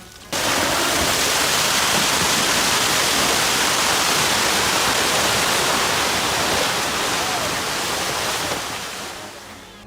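Loud, steady rushing noise with no distinct tone or rhythm. It starts abruptly just after the start and fades out near the end.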